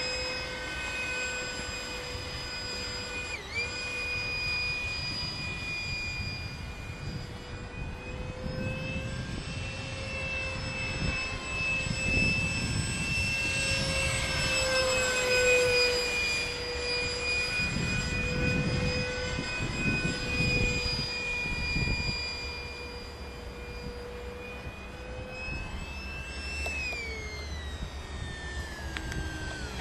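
Electric ducted fan of a radio-controlled Harrier model jet in flight: a steady high whine with overtones. It grows louder for a while in the middle and falls in pitch near the end.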